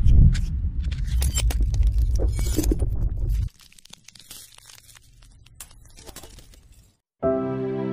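Logo-intro sound effects: the low rumble of a boom dying away under sharp glitchy crackles and clicks, cutting off suddenly about three and a half seconds in, then faint scattered crackles. Soft, slow music with sustained notes begins near the end.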